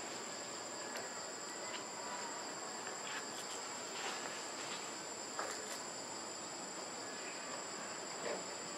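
Steady, high-pitched drone of an insect chorus, holding two even pitches without a break, with a few faint clicks scattered through it.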